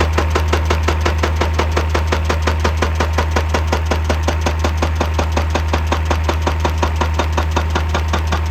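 Excavator-mounted hydraulic rock breaker hammering rapidly and evenly at rock, over the excavator's diesel engine running steadily.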